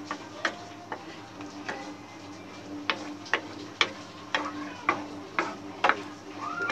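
Wooden spatula stirring thick tomato sauce in a frying pan, knocking against the pan about twice a second.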